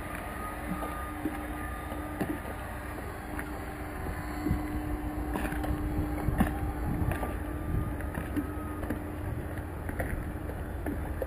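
Marina ambience: a steady machinery hum, with wind rumbling on the microphone and light, irregular knocks about once a second.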